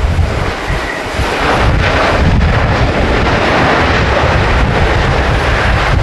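Boeing 747-400D jumbo jet landing on a wet runway: a broad jet roar that swells about a second and a half in and holds, with strong gusty wind buffeting the microphone.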